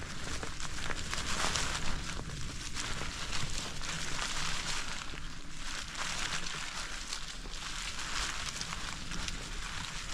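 Bicycle tyres rolling along a dirt farm trail: a steady crackling rustle full of small clicks, over a low rumble.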